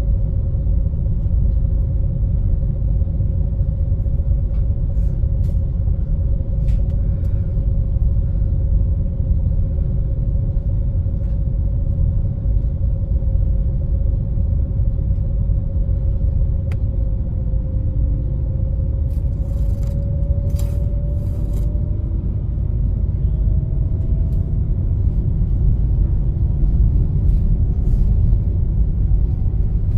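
A Super Jet high-speed ferry's engines running under way: a heavy, steady low rumble with a whine that rises a little in pitch from about two-thirds of the way through.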